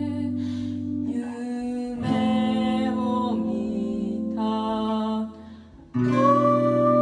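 Slow music: guitar with long held melody notes. It dips out briefly a little after five seconds in and comes back a moment later.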